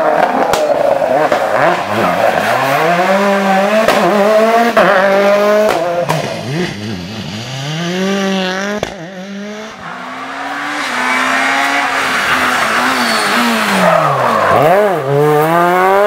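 Rally cars accelerating past one after another, their engines revving hard and dropping back through quick gear changes, with a few sharp cracks between shifts. One car fades away about halfway through and another comes up loud.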